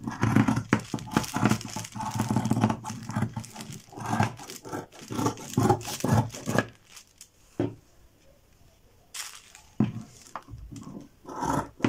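Dressmaker's scissors cutting through thick herringbone woven fabric along a pinned paper pattern: a quick run of snips for the first six or seven seconds. After that come a few scattered handling sounds of paper and fabric.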